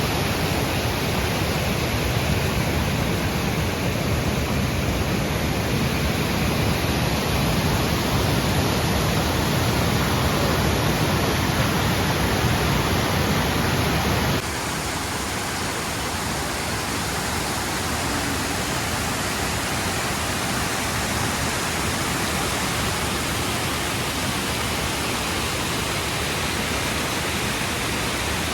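Waterfall: a steady rush of falling water. About halfway through, the sound changes suddenly to a slightly quieter rush with less low rumble.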